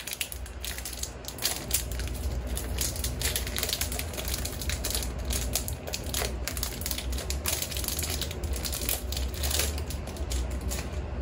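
Foil wrapper of a Match Attax trading-card pack crinkling and tearing as it is ripped open by hand: a dense, irregular run of quick crackles, over a steady low hum.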